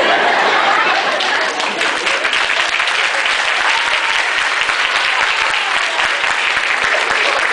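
A large audience applauding: dense, steady clapping with some voices mixed in.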